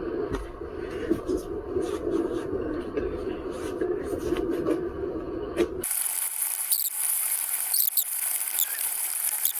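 Duct tape being pulled off its roll and stuck down: a steady screeching rip, changing abruptly about six seconds in to a high hissing rub with a couple of short squeaks.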